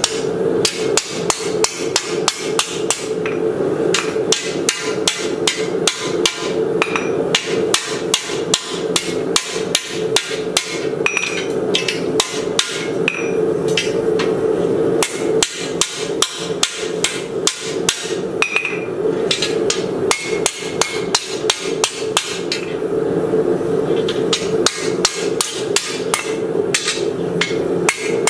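Hand hammer striking a red-hot 3/16" x 1" steel flat bar on an anvil: sharp metallic blows at about three a second, broken by a few short pauses, curling the bar's end into a hinge barrel. A steady hum runs underneath.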